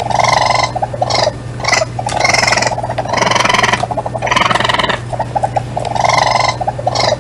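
Raccoon calling: repeated high chittering trills alternating with drawn-out whining calls, several times over, with a steady low hum underneath.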